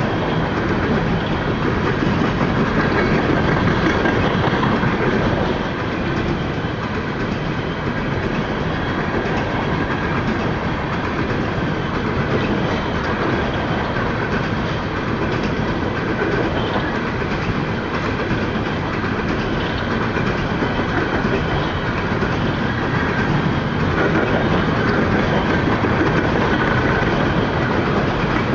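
Empty open-top hopper cars of a freight train rolling past: a steady, continuous noise of steel wheels running on the rails.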